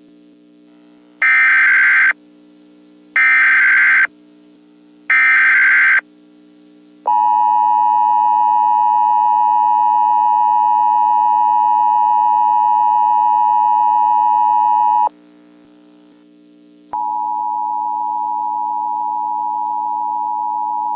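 Emergency Alert System tones: three short bursts of SAME header data, then the two-tone EAS attention signal held steady for about eight seconds. After a short gap comes a quieter single steady tone. A faint low drone sits underneath throughout.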